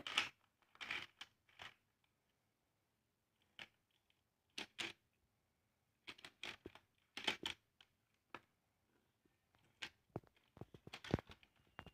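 Irregular small clicks and short scrapes of a die-cast toy car being handled and rolled across a plastic car-wash playset, with pauses of near silence between them.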